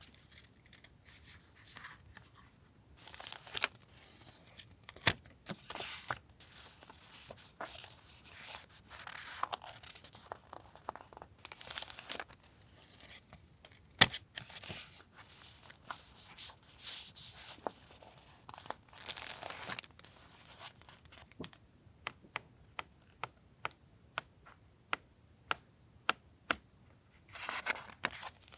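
Paper and plastic stationery packaging being handled up close: crinkling and tearing in irregular bursts, with small taps and clicks and one sharper knock about halfway through.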